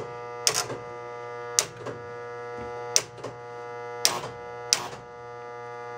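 Electromechanical pinball letter relays clacking as each playfield letter rollover is tripped: five pairs of sharp clicks, about one pair a second. Each relay now pulls in after its normally-closed switches were bent back into contact. A steady electrical hum from the powered machine runs underneath.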